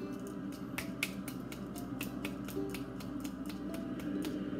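A hand tapping the side of a lidded glass jar holding salt and popcorn kernels, in a steady run of sharp taps, about four a second.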